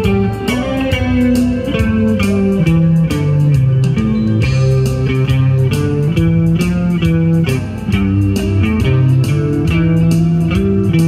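Guitar music: a melody of plucked guitar notes over a moving low bass line.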